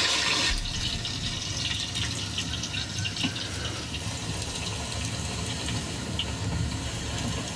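Medu vada (urad dal fritters) deep-frying in hot oil: steady sizzling hiss with many small crackles. It is louder at first and drops a little about half a second in.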